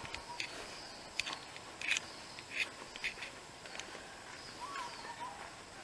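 Footsteps on a concrete path at a walking pace, over quiet outdoor ambience, with a single short bird call late on.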